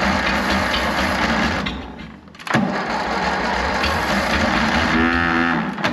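1954 Ferguson TEA20's engine turning over and firing roughly on fuel squirted into the intake, just about running; it can't yet run on its own fuel system. The engine fades about two seconds in and picks up again suddenly half a second later.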